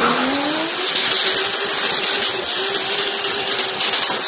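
Drift car's engine revving up and then held at high revs while the rear tyres spin and smoke in a donut, with a loud hiss of tyre noise over the engine note.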